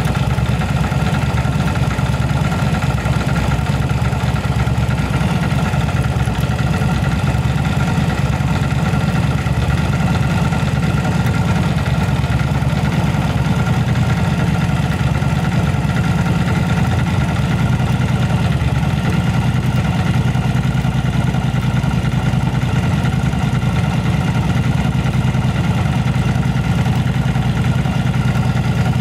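Yamaha V-Star 1100 Classic's air-cooled V-twin engine idling steadily while its carburettors are being adjusted.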